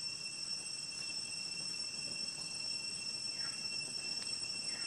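Steady high-pitched drone of an insect chorus of crickets or cicadas, holding several pitches at once. Twice, about three and a half seconds in and again near the end, a faint short call slides down in pitch.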